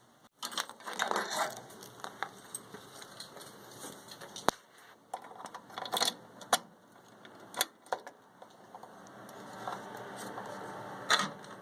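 Handling noises: a faint rustle with scattered sharp clicks and knocks, a dozen or so spread irregularly. The tractor engine is not running.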